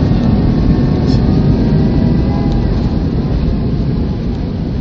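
Jet airliner cabin noise: a steady, loud rumble of engines and airflow heard from inside the cabin, easing slightly toward the end.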